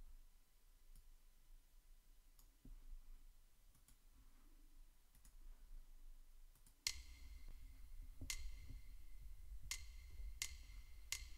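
Near silence with faint scattered clicks, then about seven seconds in a count-in from Band-in-a-Box music software before the backing track plays: two slow clicks followed by four quicker ones, about 0.7 s apart, over a faint low hum.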